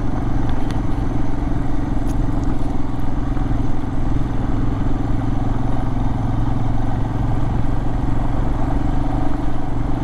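Royal Enfield Himalayan's single-cylinder engine running steadily as the motorcycle is ridden at an even speed.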